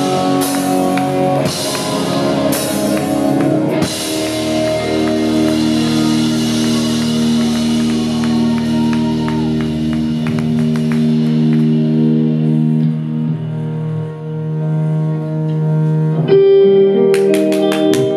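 Live rock band playing electric guitars, keyboards and drums. It opens with several crash-cymbal hits, then held chords ring out for several seconds, and the drums come back in with a new section near the end.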